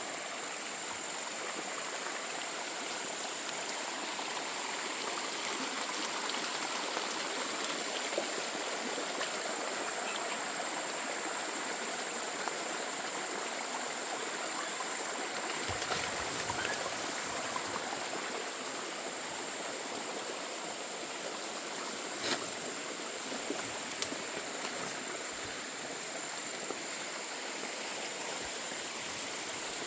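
Water running steadily in a stream, with a thin, steady high-pitched tone above it and a few faint knocks.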